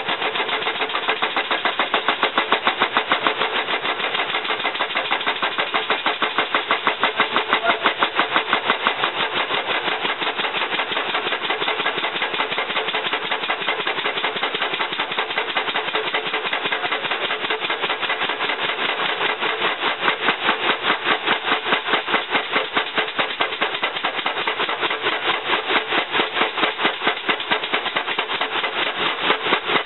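Aircraft under-axle jacks running as they lift a Boeing 767's main landing gear axle, with a rapid, even chattering rhythm.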